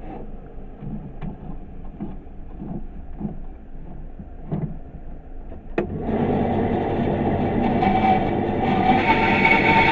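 Light handling knocks as a wooden blank is set on a bandsaw table. About six seconds in, a click is followed by the bandsaw starting up and running steadily, much louder.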